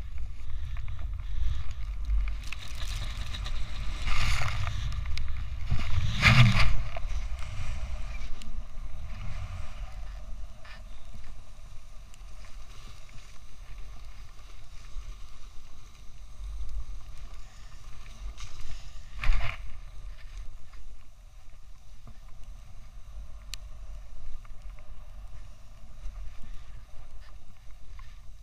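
Wind rumbling on an action camera's microphone as a rider slides fast through fresh powder snow, the snow hissing under the rider. There are louder rushes about 4 and 6 seconds in and again around 19 seconds.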